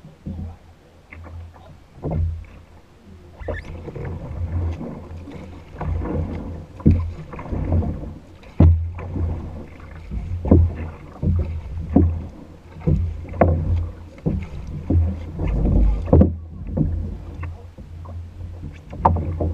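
Dragon boat being paddled: a rhythmic series of paddle strokes and splashes, under a second apart, over a steady low rumble.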